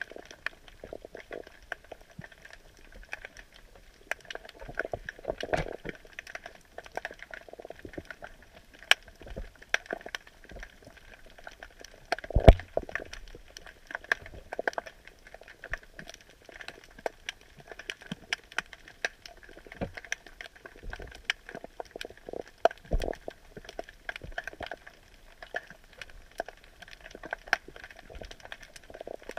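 Underwater crackle picked up by a submerged camera: a dense, continuous scatter of small clicks and pops, with a few louder knocks, the loudest about twelve seconds in.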